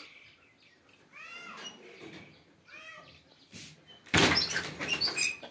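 A young German Shepherd whining in short, high, arching calls, three or four times, followed about four seconds in by a loud rattling clatter that lasts about a second.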